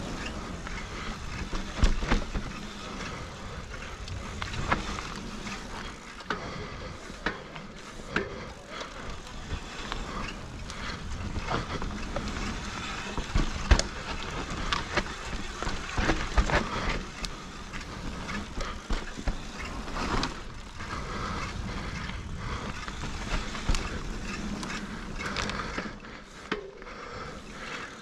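Mountain bike riding fast down a dirt trail: a steady rush of tyres rolling and scrubbing on packed dirt through berms and over bumps, broken by frequent sharp knocks and rattles from the bike as it hits the rough ground.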